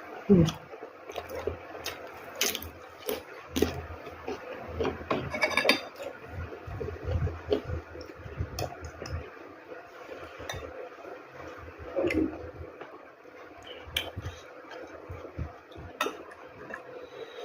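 Eating sounds at a meal: spoon and dish clinks and scrapes on a plate, with irregular clicks and soft knocks scattered through.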